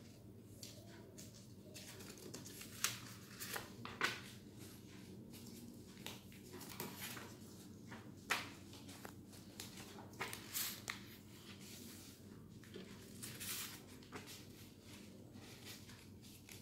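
A sheet of construction paper being handled and creased on a tabletop: scattered short rustles and taps, with a few sharper clicks, about three and four seconds in and again around eight seconds.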